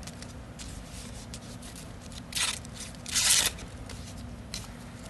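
Boker Magnum Lady Damascus pocket knife's blade making two brief slicing cuts, the second a little longer: smooth cuts, the blade still sharp after stab tests on a can.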